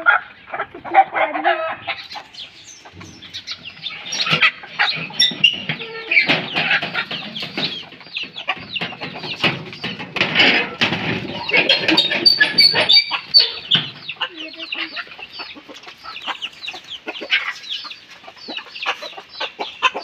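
A flock of chickens clucking, many short calls overlapping one another, thickest around the middle.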